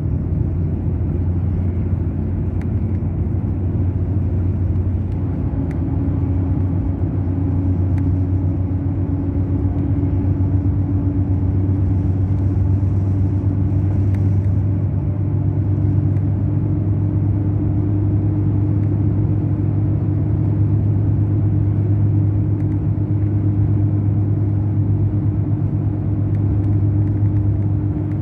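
Mercedes-Benz O500 RSD bus's diesel engine running steadily under way, a continuous low drone. A higher hum joins about five seconds in and slowly rises in pitch as the bus picks up speed.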